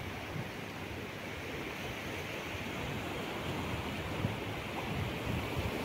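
Shallow ocean surf washing over a flat sandy beach: a steady rush of water.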